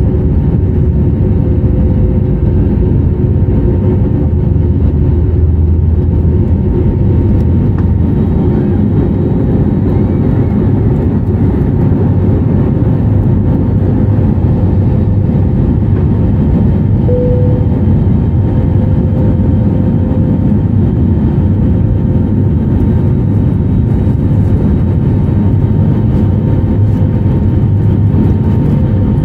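Airbus A320neo cabin noise during takeoff and initial climb: a loud, steady low rumble of the jet engines at takeoff power, with a steady hum tone running through it.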